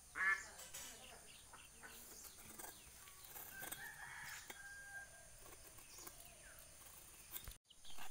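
Domestic chickens calling in short bursts, the loudest a brief call a moment after the start, with fainter calls later on. Faint clicks of a blade cutting through vegetables come under them.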